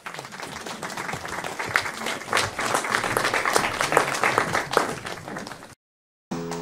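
Audience applauding after a spoken poetry recital, a dense patter of many hands that builds over the first couple of seconds. It is then cut off abruptly near the end.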